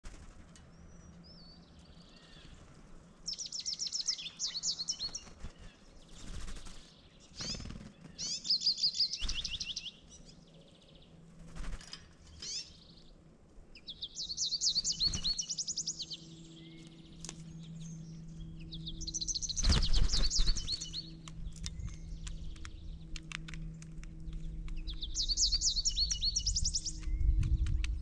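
A small songbird repeating a short, rapid high trill about every five seconds. There are occasional dull thumps, the loudest about two-thirds of the way through, and a faint steady low hum in the second half.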